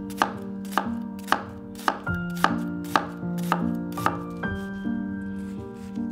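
Chef's knife chopping an onion on a cutting board: even knocks of the blade on the board, about two a second, over soft background music.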